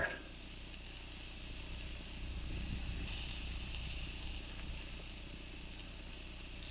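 Pork chops sizzling faintly on a small portable grill: a soft, even hiss that grows a little louder about two seconds in, over a low steady hum.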